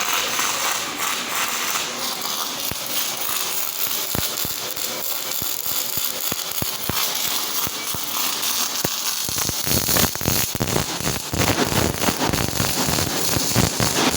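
Electric welding arc from a Powertronic PT400EVO welding machine crackling and sputtering steadily. About two-thirds of the way through, the sputter grows denser and harder, with sharper pops.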